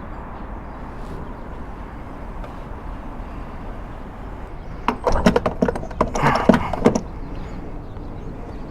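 Refuelling a motorcycle at a gas pump: a steady background hum, then about five seconds in a two-second run of sharp metallic clicks and clatter as the fuel nozzle and filler are handled.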